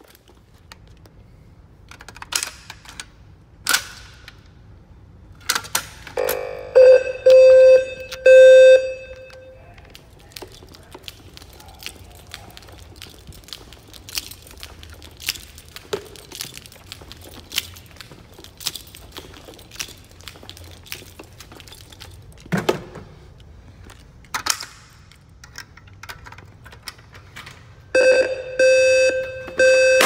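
Fire alarm speakers of a Notifier voice evacuation system sounding the evacuation tone: three short pulses of a steady tone in a row, the temporal-three pattern, about seven seconds in and again near the end. Footsteps on a hard floor click in between.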